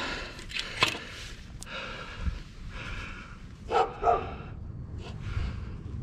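A dog barking twice in quick succession about four seconds in, with a sharp click about a second in.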